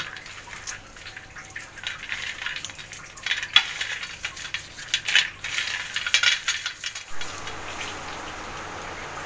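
Dry-roasted peanuts rubbed between the hands on a steel plate to crush off their skins: an irregular dry rustling and clicking of nuts and papery skins against the metal. About seven seconds in this gives way to a steady faint hiss.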